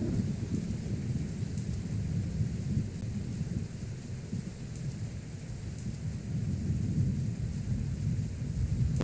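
Thunderstorm wind near a tornado, heard as a heavy, gusting rumble on the microphone, with rain hissing above it. The rumble eases a little midway and builds again near the end.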